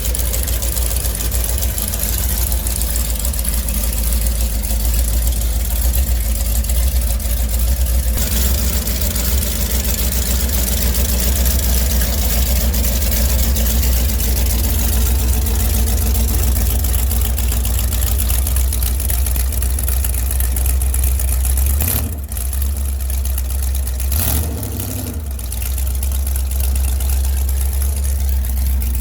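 Carbureted inboard engine of a V-drive drag boat idling steadily through open, straight-out headers, pretty loud. Twice near the end the sound briefly drops away and comes back.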